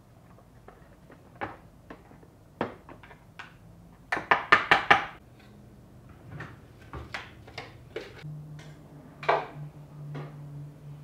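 A spoon knocking and scraping against a plastic manual chopper bowl as chopped onion is emptied out: scattered clicks, with a quick run of about six sharp taps a little after four seconds in.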